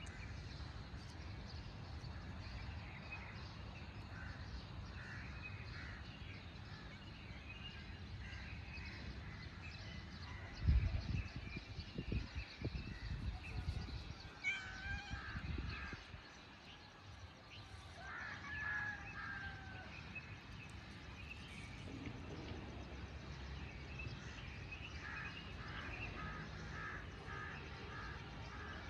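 Outdoor ambience: birds calling on and off over a steady low rumble, with a cluster of low thumps between about ten and sixteen seconds in.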